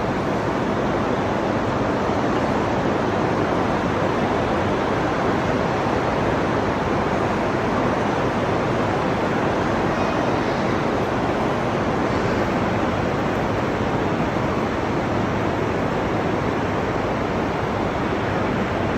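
Heavy rain beating on a mall's transparent roof panels, a loud, dense, steady hiss of countless drops with no letup.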